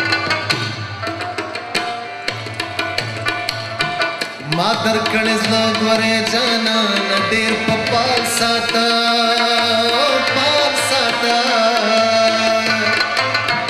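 Live Pashto folk song: a harmonium holds steady chords over regular hand-drum strokes. About four and a half seconds in, a male voice enters with a rising note and sings on over the harmonium and drums.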